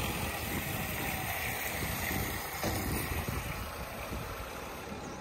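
Liquid pouring from a hose into an excavator's tank filler neck, splashing against the strainer and filling the tank, with wind rumbling on the microphone.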